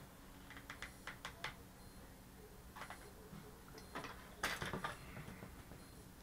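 Light clicks and taps of small hand tools and parts being handled at a soldering bench: a few quick ticks in the first second and a half, another near three seconds, and a louder cluster of taps around four and a half seconds in.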